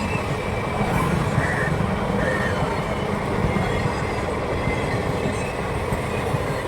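Train running past, a steady rumble of wheels on the rails, with two short high squeaks about a second and a half and two seconds in. No horn sounds.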